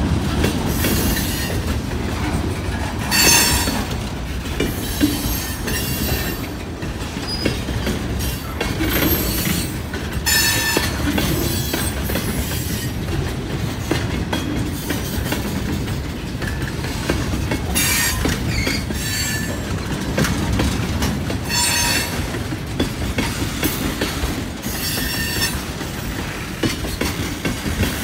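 Mixed freight train of boxcars, tank cars and open-top hoppers rolling past: a steady rumble of steel wheels on rail, with short high-pitched wheel squeals breaking in every few seconds.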